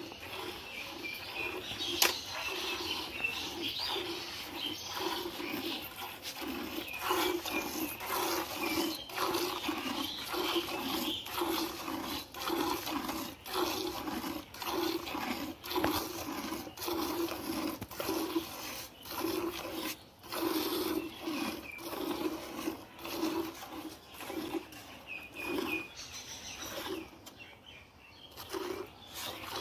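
A cow being hand-milked: milk squirting from the teats in alternating streams into a metal bucket, in an even rhythm of squirts.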